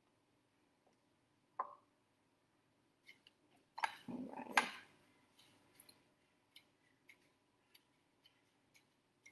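Crockery and utensils handled on a kitchen bench: a single clink about a second and a half in, a short burst of clatter and scraping around four seconds in, then faint light taps.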